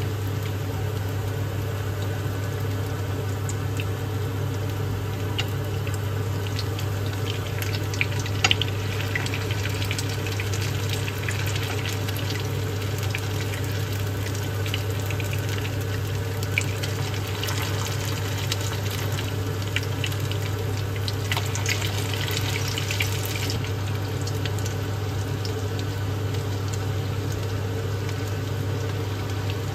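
Pamonha corn fritters frying in hot oil in a pan, crackling and sizzling. A metal spoon and spatula click against the pan a few times as the fritters are turned. A steady low hum runs underneath.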